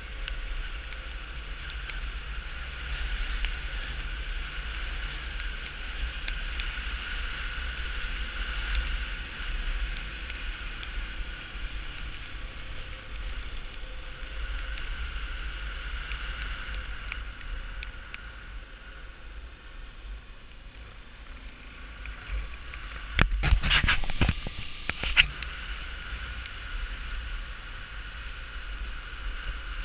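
Honda Tornado 250 motorcycle's single-cylinder four-stroke engine running at a steady cruise, mixed with wind and road noise on a bike-mounted camera. A short cluster of louder knocks comes about three-quarters of the way through.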